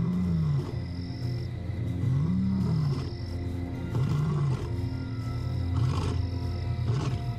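Young male lion roaring: about four calls roughly two seconds apart, each rising then falling in pitch. It is a long-distance call to find his lost companion, who does not answer.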